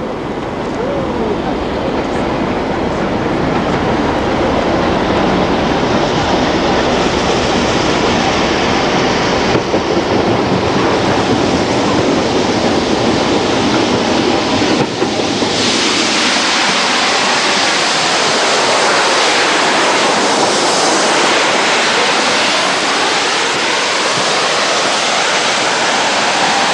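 Steam-hauled passenger train running in and past, a continuous loud rumbling rush with no clear beat. About halfway through, the low rumble drops away and a brighter rushing noise of the coaches rolling by takes over.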